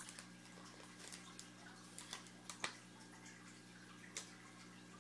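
Faint clicks and flicks of trading cards being handled and slid past one another, with a sharper snap about two and a half seconds in and another near four seconds. A low steady hum runs underneath.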